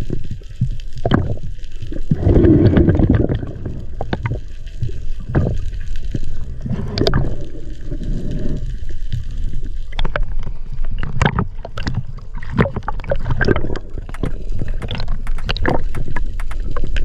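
Seawater sloshing and gurgling around a diver's camera, with a steady low rumble and many scattered sharp clicks and knocks.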